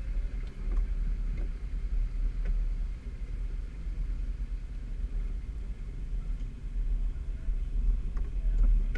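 Nissan Patrol's engine running at low revs as the 4x4 creeps forward, heard from inside the cab as a steady low rumble.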